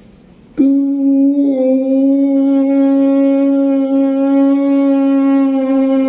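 A man imitating a train's horn with his voice: one long, steady hooting note that starts suddenly about half a second in and is held for over five seconds, dipping slightly in pitch early on. It is the opening of his vocal imitation of a train passing through a tunnel.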